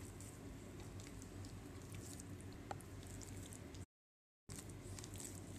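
Faint squishing and crackling of a hand kneading soft, crumbly dough of margarine, egg and flour in a glass bowl, over a steady low hum. The sound cuts out completely for a moment about four seconds in.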